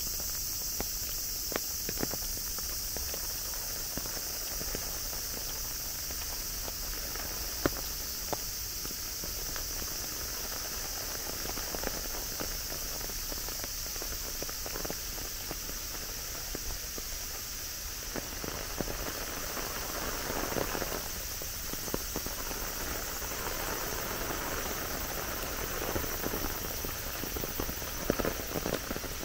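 Steady hiss of rain with scattered sharp drips and taps, and a walker's footsteps. The rain noise grows fuller from about two-thirds of the way in.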